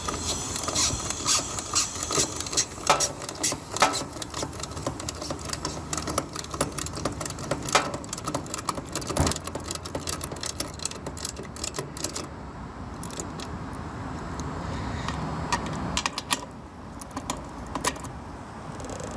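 Metal tools clicking and rattling rapidly against the refrigerant line's service valves as they are turned open to release the refrigerant into the system. The clicking is dense for about twelve seconds, then thins out to scattered clicks.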